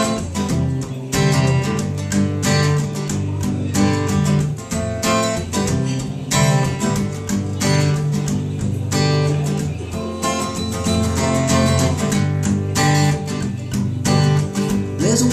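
Solo acoustic guitar strummed in a steady rhythm, chords ringing between strokes, with no voice over it.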